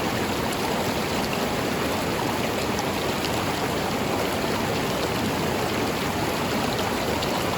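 River water running steadily over rocks, an even rushing with small splashes and ticks on top.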